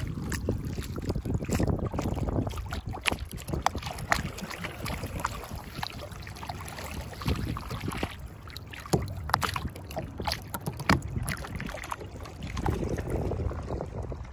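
River water rushing and splashing along the hull of a moving pontoon boat, with many sharp irregular splashes over a low rush, and wind on the microphone.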